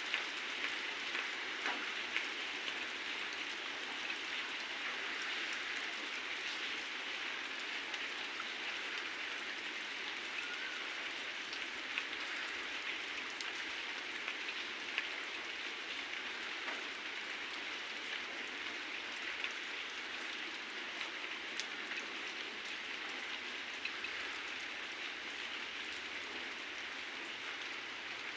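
Heavy rain falling steadily, a dense hiss with scattered sharper drop ticks.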